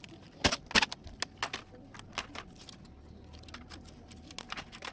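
Laptop plastic and metal parts being handled and pried apart: a run of sharp clicks and clacks, the two loudest close together near the start.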